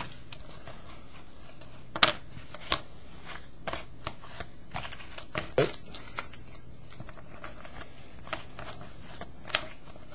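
Trading cards being flipped through by hand: irregular soft slides and snaps of card stock, the sharpest about two seconds in and near the middle, over a steady low hum.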